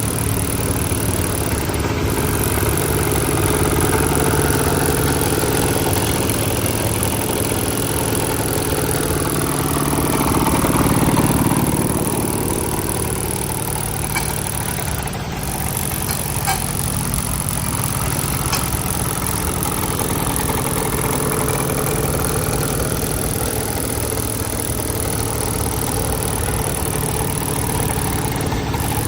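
Engine of a small asphalt compacting machine running steadily, growing somewhat louder about ten to twelve seconds in.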